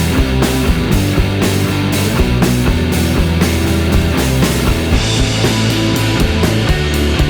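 Background rock music with a steady drum beat and heavy bass.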